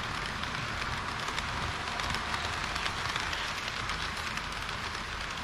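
HO-scale model train running along the track: a steady rattling hiss of small metal wheels on the rails, with faint scattered clicks and a low hum underneath.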